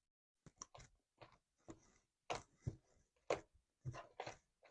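Slime being squeezed and worked by hand, giving about ten faint, irregular sticky clicks and pops.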